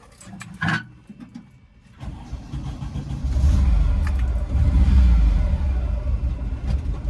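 A few light clicks, then about two seconds in a Volkswagen T2 bus's air-cooled flat-four engine starts and runs with a steady low rumble.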